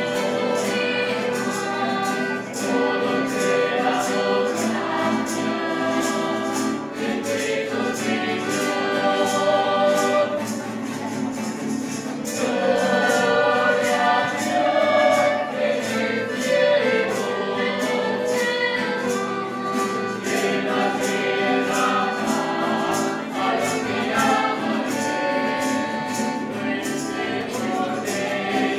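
A choir singing a church hymn to instrumental accompaniment with a steady beat.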